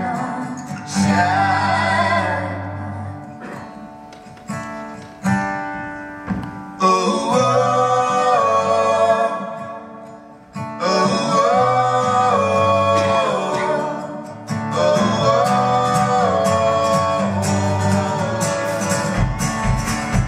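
An acoustic guitar played under two men's voices and a woman's voice singing together in harmony, in long held phrases with short breaks between them. A deep low sound comes in near the end.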